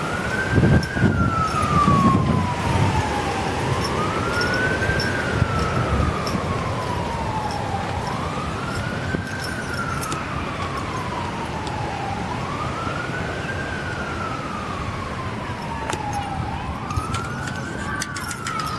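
A siren wailing, its pitch rising quickly and then falling slowly, over and over about every four seconds. Some rustling and knocks come in the first few seconds.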